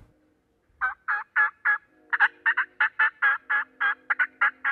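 Turkey call sounding a run of hen yelps, short sharp notes at about four a second, starting about a second in, used to call to hens that are with a tom.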